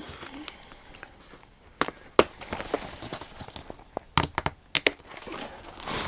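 Plastic packing straps round a cardboard box being snipped: sharp snaps, two about two seconds in and a quick cluster between four and five seconds, with rustling of the straps against the cardboard.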